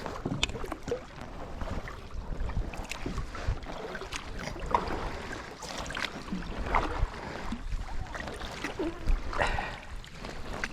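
Kayak paddle strokes dipping and splashing in creek water, an irregular run of small splashes and drips.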